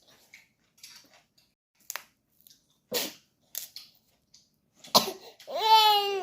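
A congested baby with a cold coughing in short, sharp bursts, about 3 and 5 seconds in. Near the end comes a brief high-pitched whiny vocal that rises and then falls.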